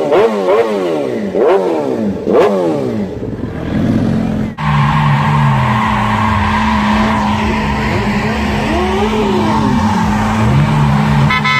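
A sport motorcycle engine revved in quick throttle blips, its pitch rising and falling several times. After a sudden cut, a car burnout follows: the engine is held at steady revs while the tyres squeal.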